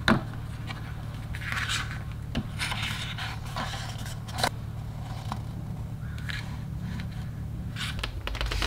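Paper rustling and scraping as thick photobook pages are turned and smoothed by hand, with a few sharp clicks, over a steady low hum.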